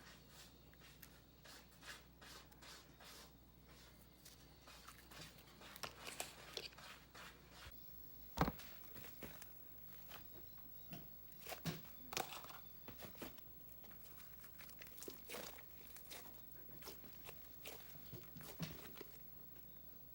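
Hands squishing and stretching slime, giving irregular sticky clicks and pops, the loudest pop about eight seconds in.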